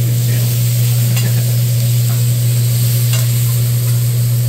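Meat sizzling on a flat-top teppanyaki griddle while two metal spatulas scrape and turn it, with a couple of sharp metal clicks about a second in and again near the three-second mark. A steady low hum runs underneath.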